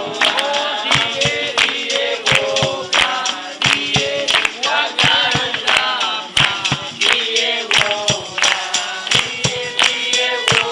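Several voices singing together to rhythmic hand clapping.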